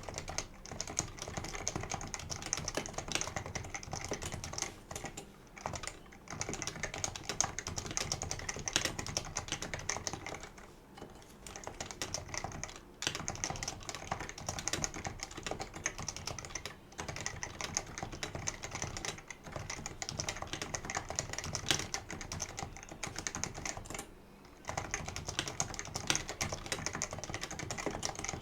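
Fast, continuous typing on a Leopold FC660C keyboard with non-lubed Topre electrostatic capacitive switches, a dense run of keystrokes broken by a few short pauses.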